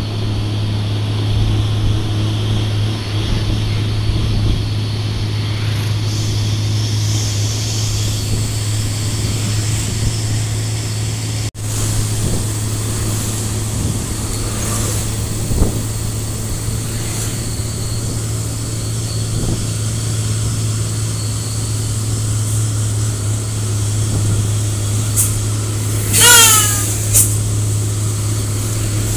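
Diesel engine of a Hino truck working hard up a grade, a steady low drone under road noise. Near the end a brief loud pitched tone sounds once, followed by a second short sound.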